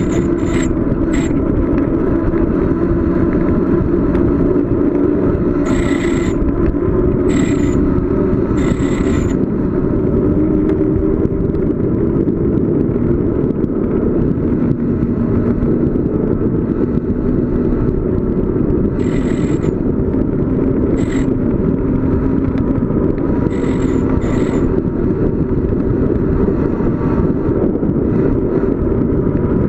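Steady, loud wind and road rumble from riding a bicycle downhill, with a wavering hum throughout and about a dozen short, high-pitched bursts scattered through it.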